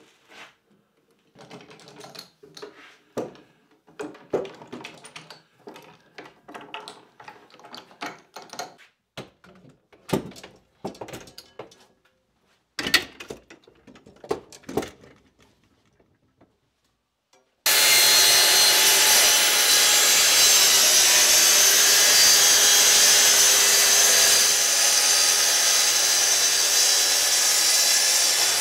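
Scattered clicks and knocks of wooden-handled parallel bar clamps being worked and handled. About two-thirds of the way in, a Festool plunge-cut track saw with a dust extractor hose starts abruptly and runs loud and steady.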